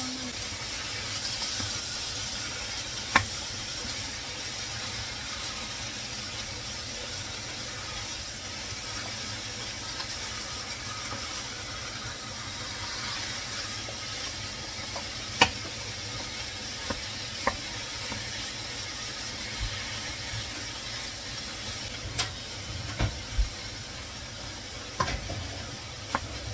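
Ground beef sizzling as it browns in a stainless steel skillet, stirred and broken up with a wooden spatula. A few sharp knocks of the spatula against the pan, more of them near the end.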